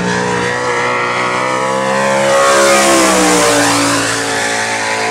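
Dirt sprint car's V8 engine at speed on a hot lap, passing by: the engine note grows louder about two and a half seconds in, then drops in pitch as the car goes away.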